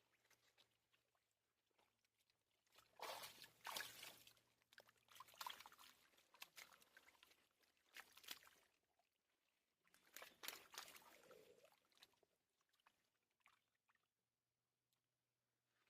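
Pond water sloshing and splashing in irregular bursts. There are two busier stretches, about three seconds in and about ten seconds in, with quieter trickles between.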